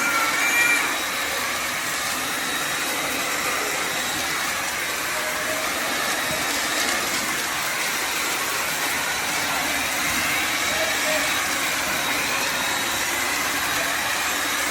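Bissell Symphony Pet vacuum-and-steam-mop motor running steadily, a continuous rushing hum with a thin high whine, as the floor is cleaned.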